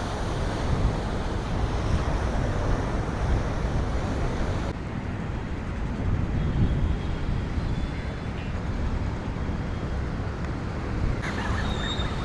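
Street ambience: a steady low rumble of road traffic. The higher hiss drops away suddenly about five seconds in and returns near the end.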